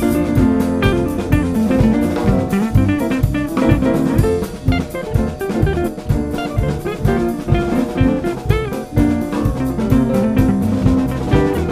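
Band music: a drum kit keeping a steady beat under electric bass and guitar.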